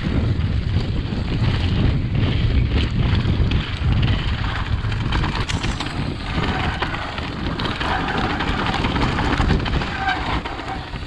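Mountain bike descending a rough dirt trail at speed: wind buffeting the camera microphone and tyres rumbling over dirt and rocks, with frequent rattles and knocks from the bike.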